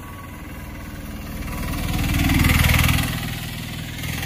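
A motor vehicle passing close by: a steady engine hum swells with tyre hiss to a peak about two and a half seconds in, then fades back.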